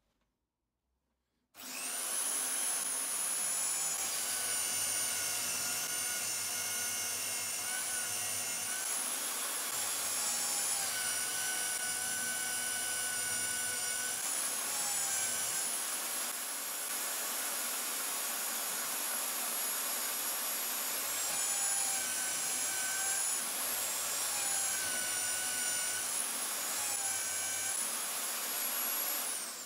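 Drill motor in a homemade drill-press stand starting up about a second and a half in and running with a high whine, boring through plywood. Its pitch dips and recovers as the bit bites into the wood, and it winds down at the very end.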